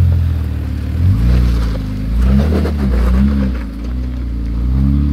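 Jeep Wrangler Sport engine working under load as the vehicle crawls over rutted dirt, revving up and down about halfway through, with some crunching of tyres over dirt and stones.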